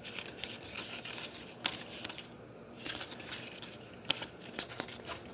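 Trading cards being handled in the hand, one slid from the front of the stack to the back, with faint papery swishes and sharp little clicks at irregular intervals.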